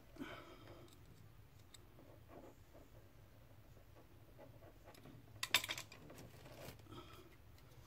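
Faint small clicks and scrapes of a small flathead screwdriver prying open a too-tight crimped spade connector on a speaker wire so it will fit the speaker terminal, with a short, sharper run of clicks about five and a half seconds in.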